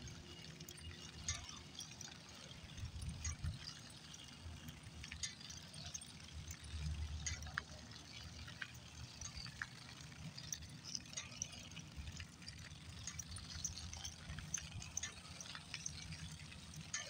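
Bicycle rolling along a paved street, with an uneven low wind rumble on the microphone and many scattered light ticks and clicks.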